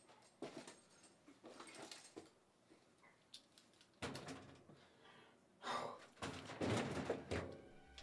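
Handling noises at a small washing machine: a clunk about four seconds in as it is reached into and opened, then louder rustling and scraping with heavy breathing as a man leans in.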